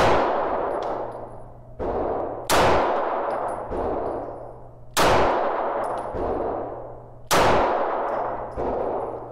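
Four 9mm handgun shots firing Ammo Inc. Streak glow-in-the-dark rounds, about two and a half seconds apart, each with a long echoing tail in an indoor range. Quieter bangs fall between them, along with short, high metallic rings.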